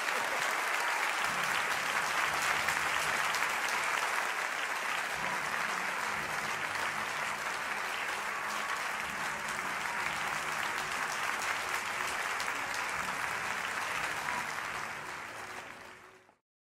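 Audience applauding, a dense patter of many hands clapping that fades out near the end and then cuts off.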